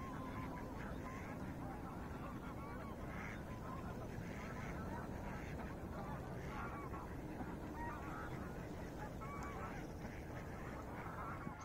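A large flock of waterfowl calling, with many faint, overlapping calls over steady low background noise.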